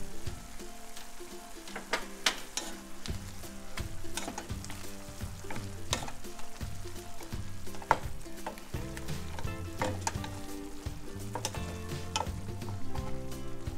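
Broccoli and carrots sizzling in a frying pan while a wooden spatula stirs them, with scattered sharp knocks and scrapes of the spatula against the pan.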